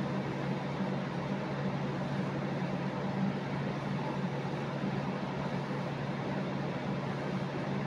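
Steady low mechanical hum over an even hiss, unchanging, as from a motor-driven appliance such as a fan running in the room.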